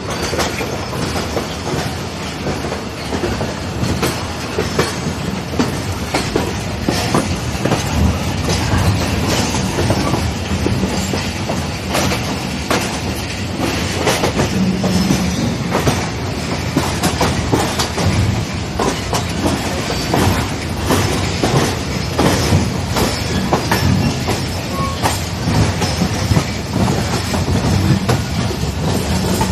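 Passenger train rolling over rail joints and points, heard at an open coach window, as it gathers speed leaving the station: a steady rumble with many sharp wheel clicks and knocks.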